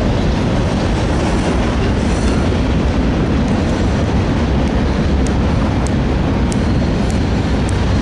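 Freight train cars rolling past: a steady, loud rumble of steel wheels on rail, with a run of sharp light clicks in the second half.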